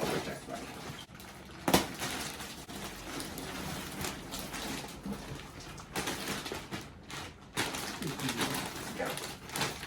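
Plastic packaging crinkling and rustling as it is cut and pulled off a rolled foam mattress, with a sharp snap or click a couple of seconds in.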